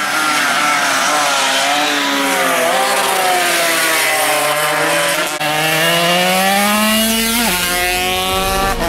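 Small racing motorcycle engines running at high revs, their pitch rising and falling as the bikes accelerate, shift and slow for corners. About three-quarters of the way through, one climbs in pitch and then drops sharply as it passes.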